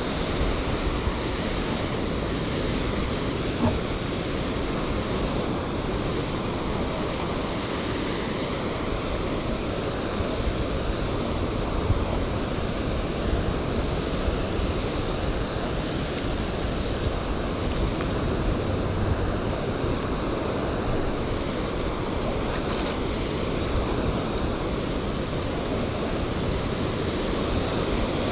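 Surf washing in the shallows with steady wind buffeting the microphone.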